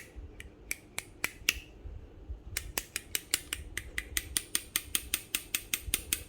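Pair of steel pliers, freshly cleaned in an ultrasonic cleaner, worked open and shut by hand, its jaws and handles clicking. A few spaced clicks come first, then from about two and a half seconds in a quick steady run of about five clicks a second.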